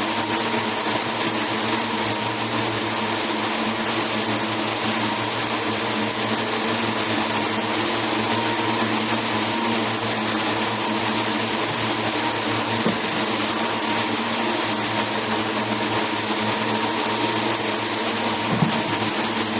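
Textile mill machinery running: long rows of multi-spindle yarn frames giving a steady hiss with low hums and a faint high tone. Two faint knocks, one past the middle and one near the end.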